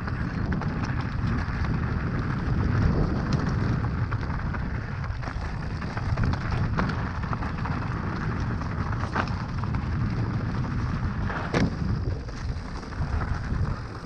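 Steady rumble of a mountain bike riding a rough trail, its tyres running over dirt and rocks, with occasional sharp clicks and knocks from the bike.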